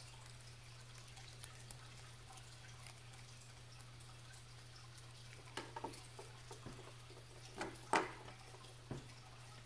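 Small clicks and taps of a precision screwdriver working on a digital watch's battery compartment, with a few light ticks around the middle and a sharper click about eight seconds in, over a low steady hum.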